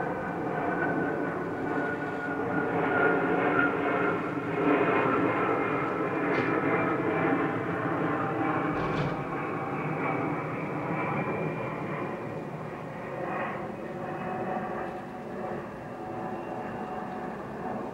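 Steady drone of a passing aircraft, loudest a few seconds in and slowly fading toward the end.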